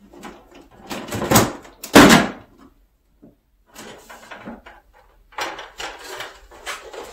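Plastic inner cover of a Samsung Wind-Free air conditioner being slid down off its top hooks and pulled away: plastic scraping and clattering in several bursts, the loudest knock about two seconds in.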